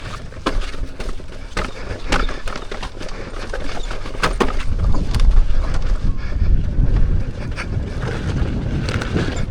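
An electric unicycle rolling over a rough, rocky dirt trail, with irregular sharp clicks and knocks from the tyre and wheel. Wind rumbles on the microphone throughout and is loudest about halfway through.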